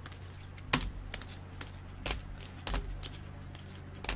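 Trading cards being sorted by hand, with about six light clicks and taps as cards are picked out and set down, over a low steady hum.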